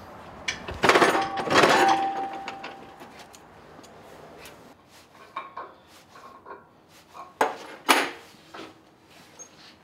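Sheet metal and steel tools clanking in a metalworking shop. Two loud clangs with a metallic ring come about a second in, then scattered lighter clinks and two more sharp knocks near the end.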